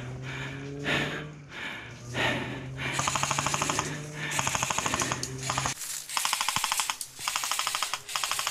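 Airsoft guns firing rapid full-auto bursts, about half a dozen short strings of shots starting about three seconds in, after a few seconds of spaced knocks.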